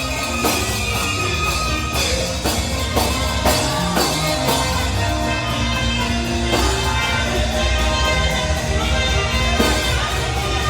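Live band playing worship music, with held notes and occasional drum strokes.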